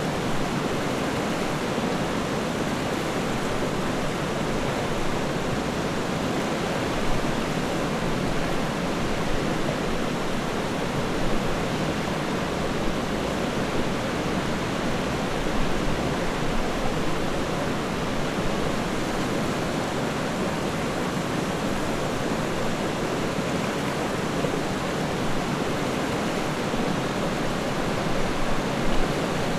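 River water flowing steadily, an even rushing and burbling.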